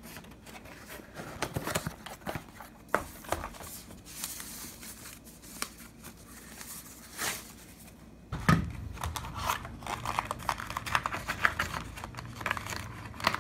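Plastic wrapping crinkling and cardboard packaging rustling as it is handled, with scattered light clicks. A knock about eight and a half seconds in, after which the rustling and clicking get busier.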